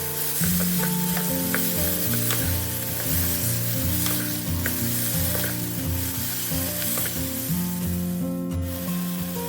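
Food sizzling in hot oil in a pot, with short clicks of a utensil stirring it, over background music.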